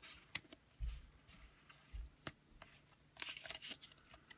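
Faint handling of a freshly opened stack of Pokémon trading cards: a few soft card clicks and taps as the cards are fanned and moved, two dull bumps about one and two seconds in, and a short rustle a little after three seconds.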